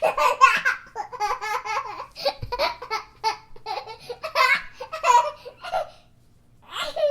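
A baby laughing in quick, rapid bursts of high-pitched giggles for about six seconds, then a short pause and one squeal that falls in pitch near the end.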